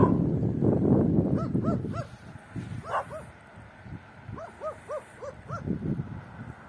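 A dog barking in short runs of three to five quick barks, with pauses between the runs. A low rumble, loudest in the first two seconds, lies under the barks.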